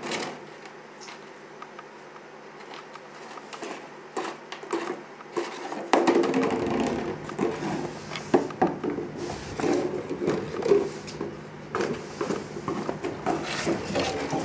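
Empty plastic jug being pushed, carried and dropped by a puppy on a hardwood floor: irregular plastic knocks and scrapes against the wood, busier and louder from about six seconds in.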